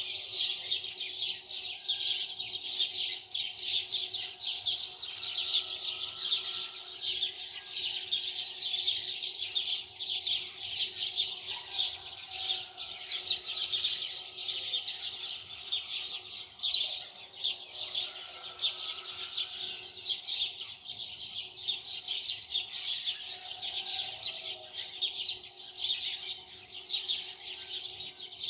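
Many small birds chirping at once, a dense unbroken chatter of rapid high chirps.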